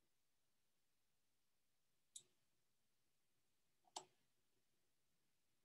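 Near silence broken by two faint, sharp clicks, about two seconds and four seconds in, made at the computer while seeking back through a video.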